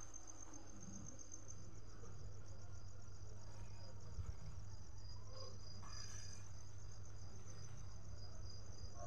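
Crickets chirping in a steady, finely pulsing high trill, over a low steady hum.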